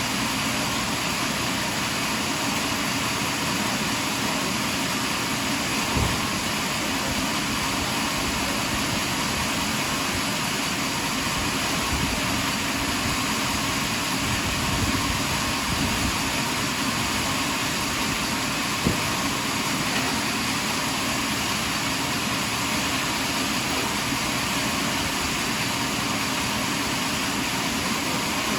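Sawmill machinery running steadily, an even mechanical noise with a few brief knocks, one about six seconds in and another near two-thirds of the way through.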